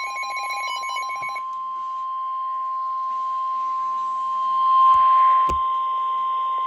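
NOAA Weather Radio warning alarm tone: a single steady high tone held throughout, the signal that a warning broadcast is about to follow. A patterned beeping overlaps it for about the first second and a half, a hiss swells up around the middle, and a sharp click sounds about five and a half seconds in.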